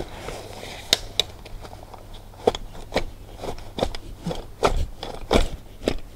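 A folding camp chair being collapsed by hand: about a dozen irregular clicks, knocks and scrapes from its metal frame and fabric seat as it folds down.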